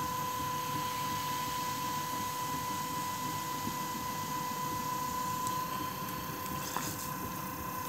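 Electric potter's wheel running at a steady speed: a constant high motor whine over a rough mechanical noise.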